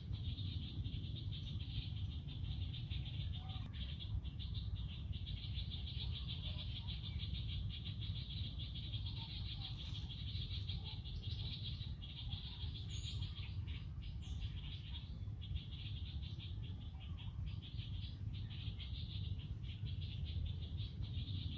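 Steady, high-pitched, rapidly pulsing insect chorus, over a steady low rumble.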